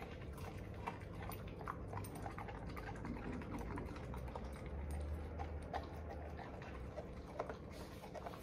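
A dog chewing a large piece of raw kale: faint, irregular crunchy clicks.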